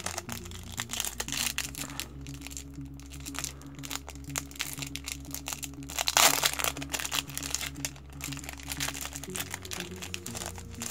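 Clear plastic wrapper on a stack of trading cards crinkling as it is peeled open by hand, in a long run of crackles that is loudest about six seconds in, over background music.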